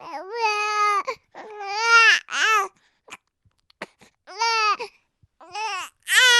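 Baby crying: a run of high-pitched wails, each under a second long, broken by short gaps and quick catches of breath, with a longer pause about halfway through before the crying starts up again near the end.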